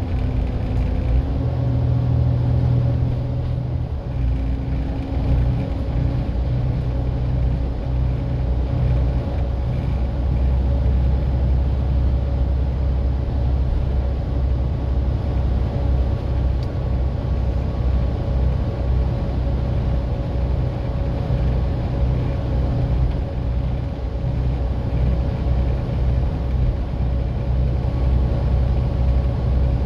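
Volvo B7TL double-decker bus's diesel engine running steadily, with a steady whine held above the engine note.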